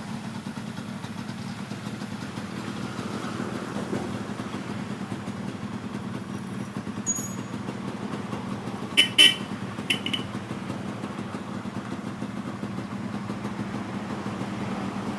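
Yamaha RX-King's 135 cc two-stroke single-cylinder engine running steadily at idle. About nine seconds in there are three short horn toots, two quick ones and then a third.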